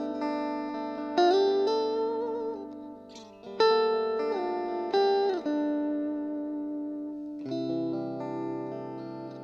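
Hardtail S-Type electric guitar playing a slow lead phrase: picked notes that bend and slide in pitch. Late on, a chord is struck and left to ring.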